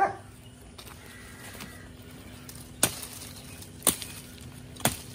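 Hand-forged axe chopping a dry branch: three sharp, short chops about a second apart in the second half. A brief clipped noise comes at the very start.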